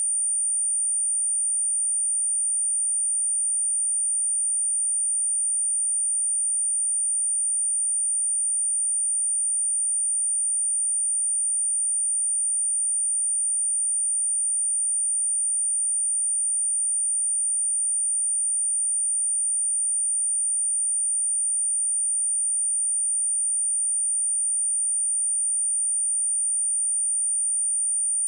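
A steady, high-pitched pure sine-wave test tone at 9057 Hz, held at one pitch and level without a break.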